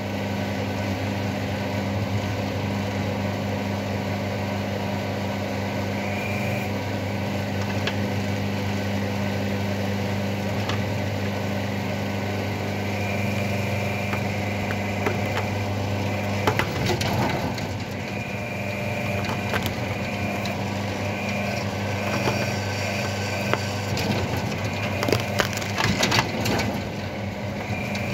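Homemade electric mini excavator's hydraulic power unit running with a steady hum and a higher whine that comes and goes as it works, while its root ripper tears roots out of the soil around a stump. Roots crack and snap repeatedly in the second half, loudest near the end.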